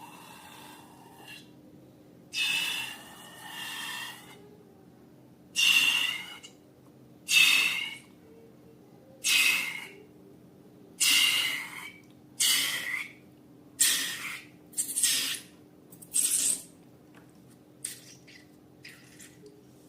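Slime being squeezed and pressed, giving a series of short squelching, airy puffs about every second and a half.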